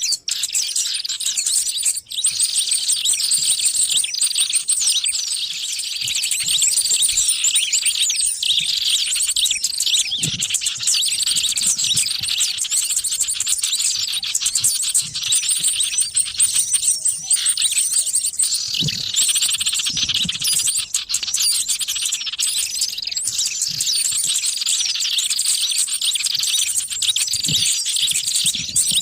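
Dense chorus of many small birds chirping and twittering at once, a continuous jumble of short high calls and trills: a bird-lure (pikat) recording used to draw small wild birds in.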